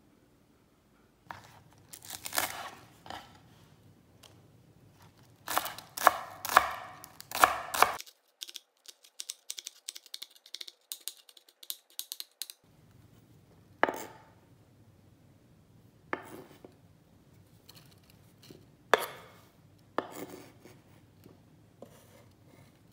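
Chef's knife chopping chives on a wooden cutting board: clusters of knocking strokes, then a run of quick light chops, then single knocks a second or two apart.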